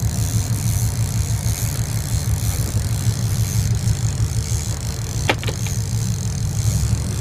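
Sportfishing boat's engines running steadily under way, a low drone, with a higher hiss of the churning wake. A short sharp click, doubled, about five seconds in.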